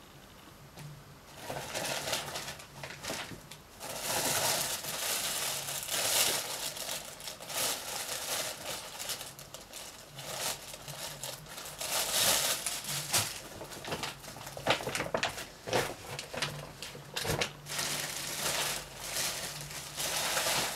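Packaging rustling and crinkling in irregular bursts as presents are handled and moved about, starting about a second in.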